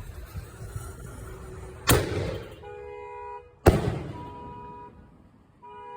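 Firework shell banger going off: two sharp bangs about two seconds apart, the second louder, each trailing away. Between and after them a pulsing electronic alarm tone sounds on and off.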